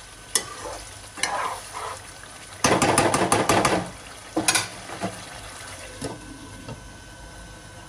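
Metal slotted spoon stirring and scraping thick chicken curry in a kadai over a faint sizzle, with about a second of rapid scraping and clattering a third of the way through. Sharp knocks follow as the spoon is lifted out and a glass lid is set on the pan.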